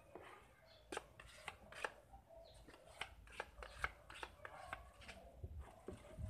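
Irregular sharp clicks and taps of paper and a plastic card being handled against a car's bumper panel, about a dozen light knocks spread over a few seconds.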